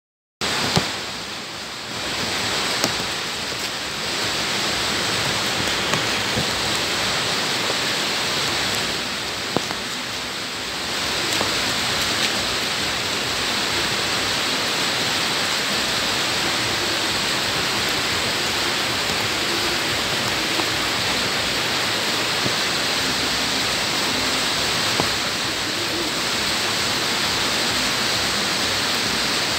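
Heavy rain falling on bare ground: a steady, dense hiss with a few sharp drop ticks. It starts abruptly about half a second in, after silence.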